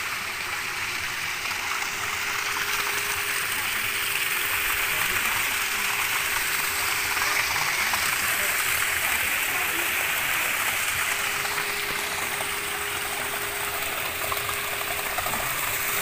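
Water running steadily from a stone roadside spring fountain, a constant rushing splash that grows a little louder over the first half.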